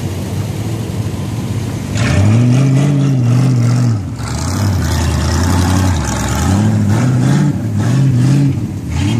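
Four-wheel-drive SUV engine working in sand: a steady engine hum, then from about two seconds in repeated revving surges that rise and fall in pitch, with a rushing noise over them.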